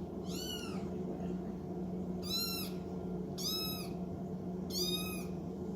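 Kittens mewing: four short, high-pitched meows, each rising and falling, spaced about a second apart.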